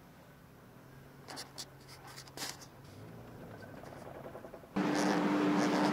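A car rolling slowly up a car ferry's loading ramp onto the vehicle deck, heard from inside the cabin: a low engine hum with a few light knocks and rattles. Near the end, a much louder steady drone with a low hum sets in suddenly.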